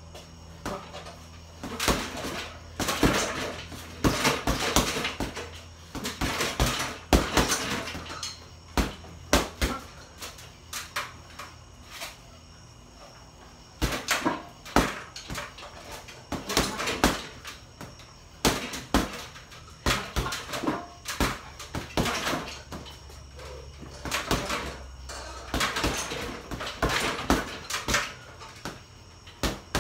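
Boxing-gloved punches landing on a hanging heavy bag in quick flurries of several blows each, with short pauses between the combinations.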